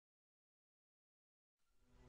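Near silence, with soft music only just beginning to fade in at the very end.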